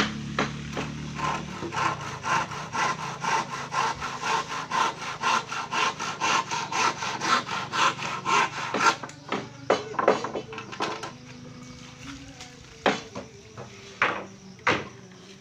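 Hand saw cutting through a wooden board, in quick, even back-and-forth strokes about three a second. The steady rhythm stops about nine seconds in, and a few separate strokes follow.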